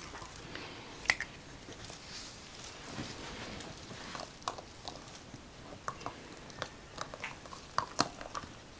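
A puppy mouthing and biting a plastic Easter egg: scattered light clicks and taps of teeth on hollow plastic, the sharpest about a second in and more in the second half.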